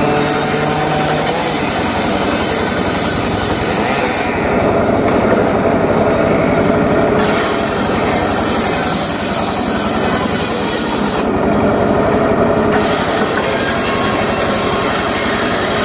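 Engine-powered saw running steadily and cutting wood, its high cutting hiss dropping away twice for a few seconds.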